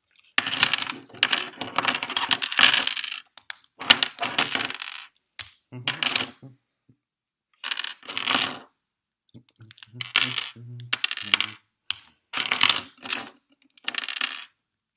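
Loose LEGO bricks clattering in repeated bursts of plastic rattling, with short pauses between them, as a built model is pulled apart and its pieces are dropped together.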